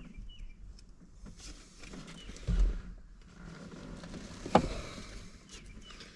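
Hands working on plastic dashboard trim, making faint handling and rustling noises. A dull thump comes about two and a half seconds in, and a sharp click, the loudest sound, about four and a half seconds in.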